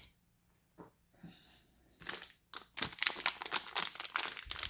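Plastic wrapper of a trading-card pack crinkling and crackling as it is handled and torn open, starting about two seconds in after a near-quiet start.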